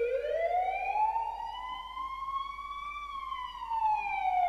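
Ambulance siren in a slow wail: the pitch rises for about three seconds, then falls away again.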